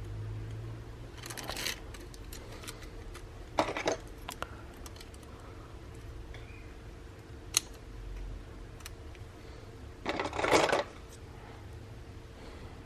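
Small plastic clamps being handled and clipped onto a phone's edges to hold a freshly glued screen: a few scattered clicks and clatters, with a longer rattle about ten seconds in, over a faint steady hum.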